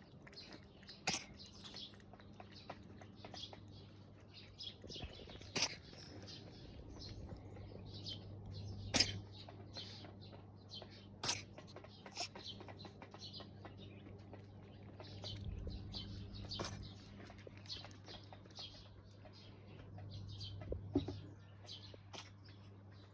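A kitten sneezing again and again: short, sharp sneezes every few seconds. Faint high chirping and a steady low hum run behind them.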